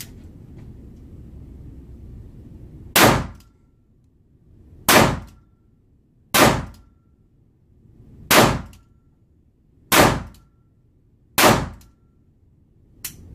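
Six single gunshots from a .30 carbine fired one-handed, about one and a half to two seconds apart, each echoing briefly off the walls of an indoor range. A fainter bang follows near the end.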